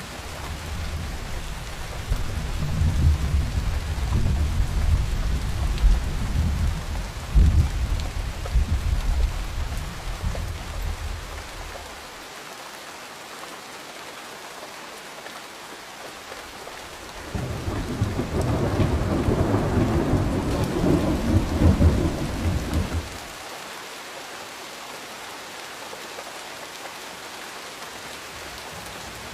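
Steady rain hissing, with two rolls of thunder: a long low rumble through the first dozen seconds, peaking twice, then a second, brighter peal about two-thirds of the way through that starts suddenly and cuts off after about six seconds.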